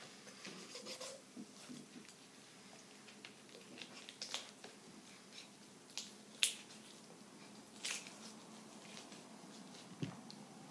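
Knife and hands working a raw whole chicken on a plastic chopping board to take off a leg. Faint wet squelches come with scattered sharp clicks and snaps, the loudest about six and a half seconds in.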